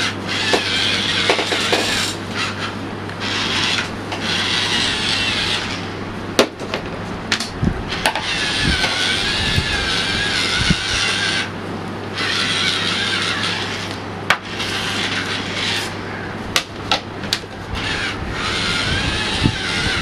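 Small DC motor of a homemade handheld dishwasher spinning a round Scotch-Brite scrub pad against a plate: a rasping, scrubbing noise with a wavering motor whine. It stops and starts several times, with a few sharp clicks.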